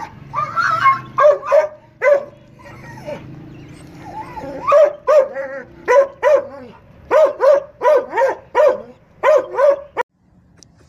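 Kohati Gulter dog barking repeatedly in short, sharp barks, a few spaced ones at first and then a fast run of about three a second, stopping abruptly about ten seconds in.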